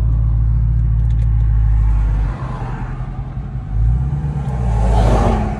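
Dodge Charger Scat Pack's 392 Hemi V8 idling with a deep, steady rumble. It drops in level about two seconds in, then swells briefly twice near the end.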